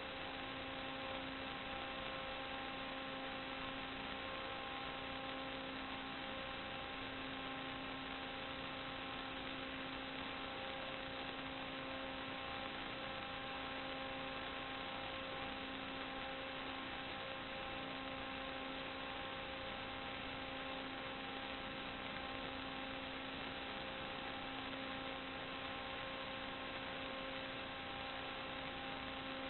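Steady electrical hum with hiss, the same pitch and loudness throughout with no change at all.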